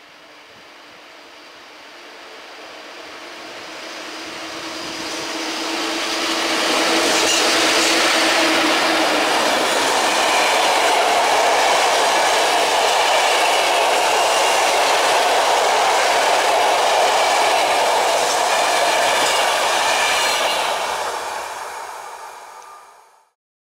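EP07 electric locomotive and its PKP Intercity passenger coaches passing at speed. The sound builds over about seven seconds, holds loud and steady while the coaches roll by, then fades and cuts off abruptly near the end.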